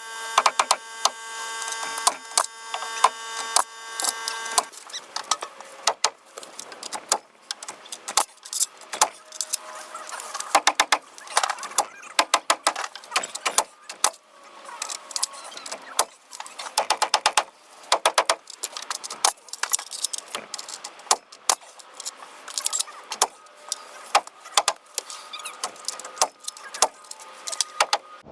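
Repeated sharp knocks on wood, coming in quick clusters, from work on a timber coop frame. A steady tone with several overtones runs under the knocks and stops about four and a half seconds in.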